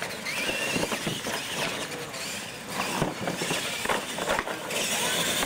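Radio-controlled monster trucks racing over low plastic and plywood obstacles on concrete: motor whine with scattered knocks and clatter as the trucks bounce over the bumps.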